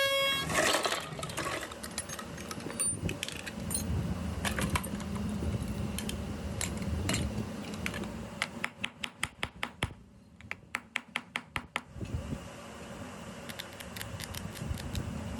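A car horn's steady honk cuts off just as things begin. Then come metal clinks, taps and handling noises from working on the horn's parts, with a run of quick, even clicks, about six a second, two-thirds of the way through.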